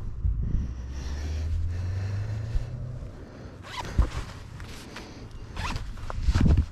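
Mountain-biking gear being adjusted by hand: fabric and straps rustling and a zipper being pulled, with a few sharp handling knocks in the second half. A steady low hum runs under it for the first three seconds.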